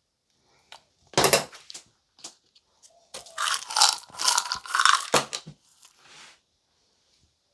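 Crunching and crackling as crushed biscuit crumbs and their packaging are handled: one loud crunch about a second in, then a couple of seconds of dense crackly rustling ending in a short thump.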